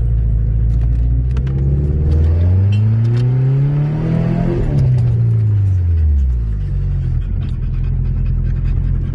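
Subaru EJ22 flat-four engine of a lifted Forester driving off-road, revving up to a peak about halfway through and then falling back to a steady lower note, with scattered light clicks and rattles over it.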